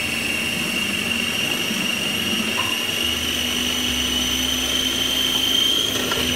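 Small electric food processor running steadily with a high motor whine, chopping cooked chicken, lentils, cabbage and bread into a smooth kabab paste; the whine creeps slightly higher in pitch near the end.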